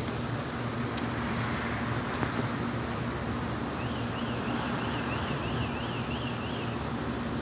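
Steady mechanical hum over a constant background noise. A little over halfway through, a run of about nine quick high chirps, roughly three a second, lasts for nearly three seconds.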